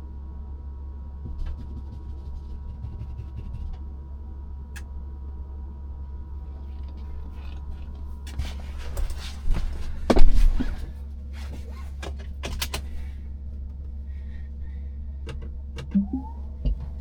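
Steady low road rumble inside a Tesla Model Y's cabin on snowy roads, with a cluster of knocks and thumps about eight to thirteen seconds in, the loudest just after ten seconds. A few more clicks come near the end.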